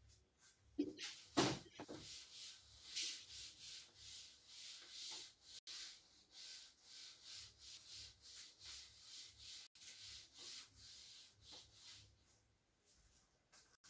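Cloth wiping a chalkboard: a quick series of rubbing strokes, with two louder bumps against the board about a second in.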